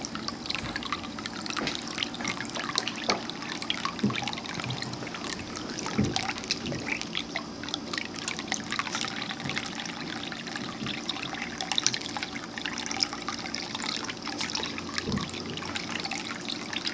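Ceramic cat drinking fountain running: water spilling over the rim of its central column and trickling steadily into the bowl, with many small splashes and drips.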